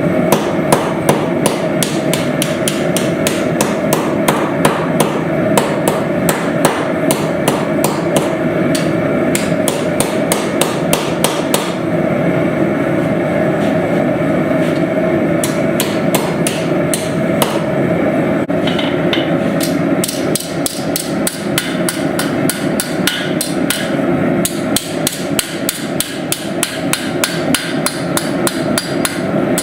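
Hand hammer striking steel on an anvil in a quick, steady rhythm of about three blows a second, with a steady roar underneath. The blows turn lighter and more even about two-thirds of the way through.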